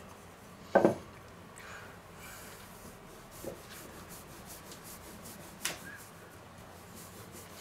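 Stainless steel rolling pin with thickness-guide rings rolling back and forth over cookie dough on a silicone baking mat, a soft rubbing. Two short sharp clicks come through, about a second in and again a couple of seconds before the end.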